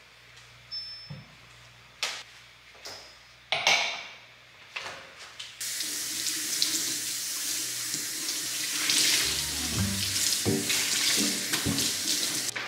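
Water running from a tap into a sink, starting about halfway through and cutting off abruptly near the end. It is preceded by a few short knocks and clatters.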